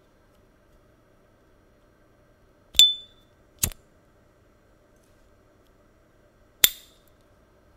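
S.T. Dupont Ligne 2 lighter: the lid flips open with a bright metallic ping, and a fainter click follows under a second later as the lighter is lit. About three seconds after that comes a loud, sharp metallic click, most likely the lid snapping shut.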